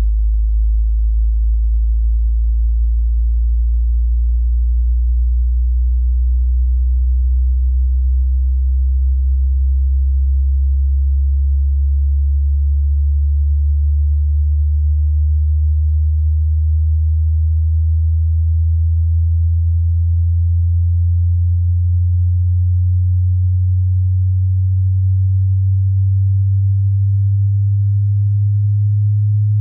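A single pure sine test tone from a low-to-high hearing-test frequency sweep, very low in pitch and rising slowly and steadily at an even level.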